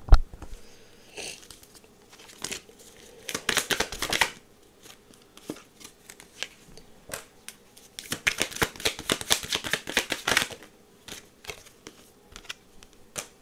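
Tarot cards being shuffled and handled by hand: two runs of rapid card flicks, a short one about three seconds in and a longer one about eight seconds in, with scattered single card clicks between.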